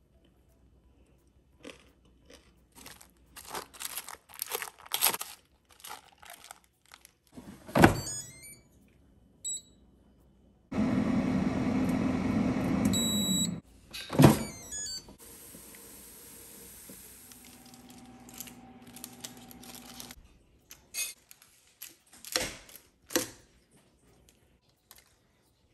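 A metal spoon scraping and stirring fried rice in a crinkling foil-lined air fryer basket, with a heavy thunk about eight seconds in. An electric air fryer then runs with a steady whir, gives short high beeps and another thunk, and hums more quietly for several seconds, before the spoon scrapes rice and foil again near the end.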